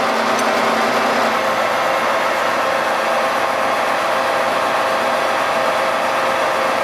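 Cincinnati Cinova 80 universal milling machine running steadily, its 5 HP drive and gearing giving an even mechanical whir with the knee under power feed.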